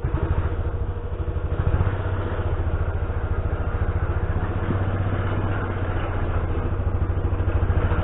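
Side-by-side utility vehicle's engine running as it drives slowly, a steady, fast-pulsing low engine note that gets a little louder as it comes closer.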